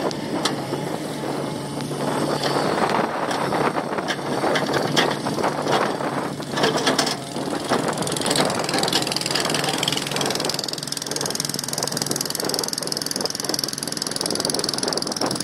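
Komatsu hydraulic excavator running, its diesel engine under steady load, with repeated metallic clanks and knocks through the first half.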